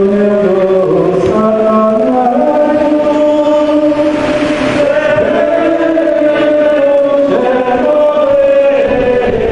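A choir singing a slow hymn of Eucharistic adoration in long held notes that step from one pitch to the next.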